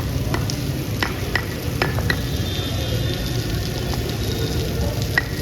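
Heavy rain falling with a steady hiss, with a few sharper drop taps scattered through it.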